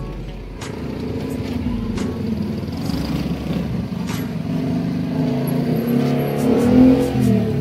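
A motor vehicle engine running, rising in pitch and loudness and falling back about six to seven seconds in.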